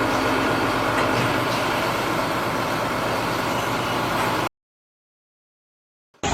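Steady mechanical running noise, like a working engine or machine, that cuts off abruptly about four and a half seconds in, followed by silence.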